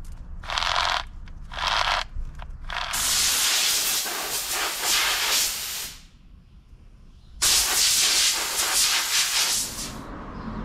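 Two or three quick scrubbing strokes of a bicycle chain being pulled through a handheld chain-washer tool with soapy water, then two long hissing blasts of compressed air from an air-hose blow gun, each about three seconds long with a short pause between, blowing the chain dry.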